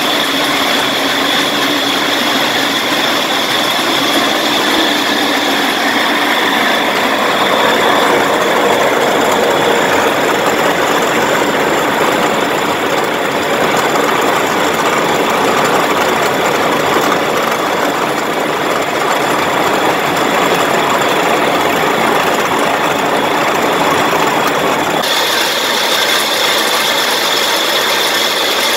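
Park Industries Fastback edge polisher running: a loud, steady machine noise from its gear motors and spinning brush and polishing heads, with a constant high whine over it.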